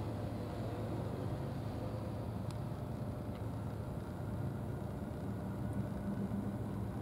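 A steady low engine hum, as of an engine idling, with a couple of faint ticks.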